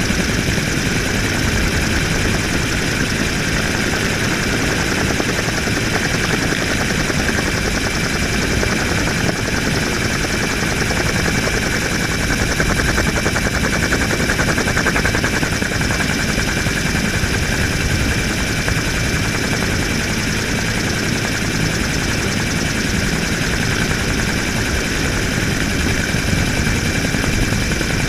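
Helicopter in flight, heard close to the airframe: a steady, rapid beat of the rotor blades with a steady high-pitched whine over it.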